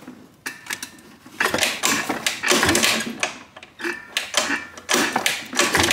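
Piaggio SKR 125 scooter's engine kicked over briefly with the kick starter, turning over for about two seconds without firing, followed by a few scattered clicks and knocks. The engine is cranked to test whether fuel is drawn through to the carburettor.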